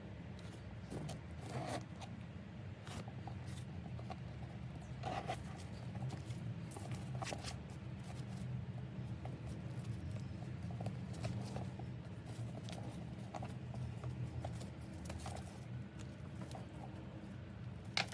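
Bag and packaging being handled: scattered rustles, scrapes and light clicks, some like a zipper being worked, over a steady low hum.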